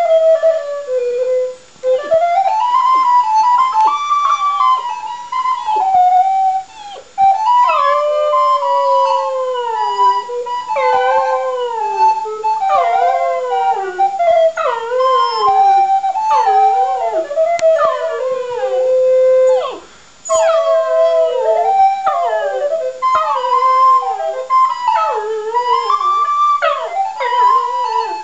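Border terrier howling along to a solo recorder melody, its howls sliding down in pitch again and again over the recorder's steady notes. Both stop briefly about 2, 6.5 and 20 seconds in.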